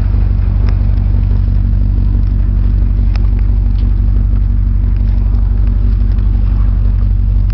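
The V8 of a twin-turbocharged 2005 Chevrolet Corvette C6 idling steadily, a loud low sound that holds the same pitch throughout, with a few faint clicks over it.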